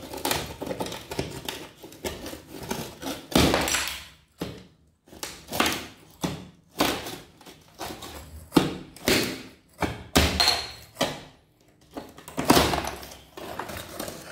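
Old ceramic floor tile being chipped and pried up by hand with a metal tool: irregular knocks and scrapes, a dozen or so strikes, with loose pieces of broken tile clinking as they are picked out.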